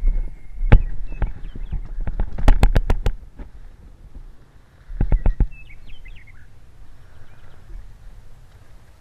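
Handling noise close to the microphone: a string of sharp clicks and knocks with low thumps as gear is moved and adjusted, including a quick run of clicks between two and three seconds in and another cluster about five seconds in. Faint bird chirps come between them.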